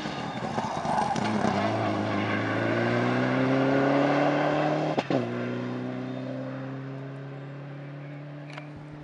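Subaru Impreza rally car accelerating hard out of a hairpin, its engine note climbing for several seconds. About five seconds in there is a brief sharp break, then the engine holds a steady pitch and fades as the car drives off into the distance.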